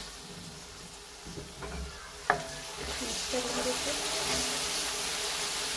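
Chicken pieces and freshly added soy sauce frying in hot oil in an aluminium kadai, with stirring. There is a sharp knock a little over two seconds in, and the sizzle gets louder from about three seconds on.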